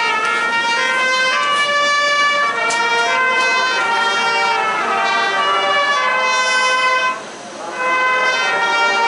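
Marching band brass playing the school's alma mater in long held chords, with a short break between phrases about seven seconds in.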